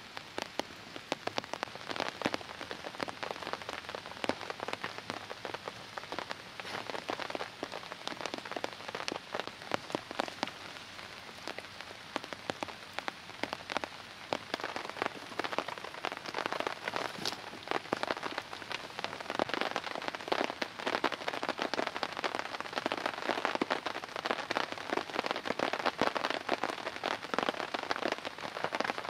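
Steady rain falling in a forest, many single drops striking close by among the even hiss, getting a little louder in the second half.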